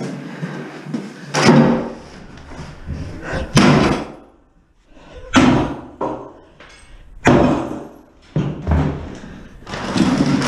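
Sledgehammer blows smashing a cast iron bathtub under a plastic garbage bag: five heavy strikes, one every one to two seconds.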